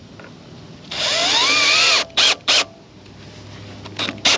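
Cordless drill driving a coated deck screw into a post. About a second in there is a run of roughly a second, its motor pitch rising and then sagging as the screw bites. Two short trigger blips follow, and two more come near the end.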